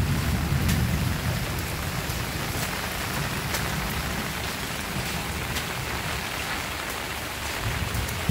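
Steady rain falling on a paved street, an even hiss with scattered close drip ticks, and a low rumble that fades away over the first couple of seconds.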